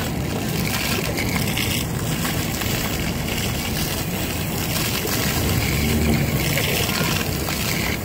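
Fountain water jets shooting up out of the plaza floor and splashing down on wet paving, making a steady spray and splash. The hiss briefly swells a few times.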